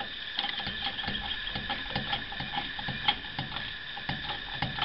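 Ratcheting wrench clicking quickly and unevenly as it runs the flange bolt nuts down on a Bell & Gossett circulator pump.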